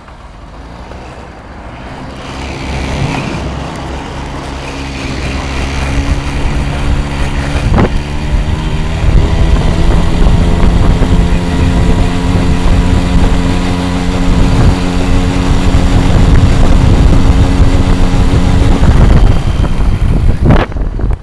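Sachs Saxonette's small two-stroke auxiliary motor running at full throttle under load, with the strange noises it makes at full load. It grows louder over the first six seconds, then holds a steady drone, with a brief sharp noise about eight seconds in and again near the end.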